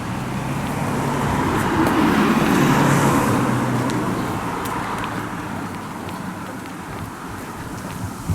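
A motor vehicle passes by on a road, its engine hum and tyre noise growing louder to a peak about three seconds in, then fading away.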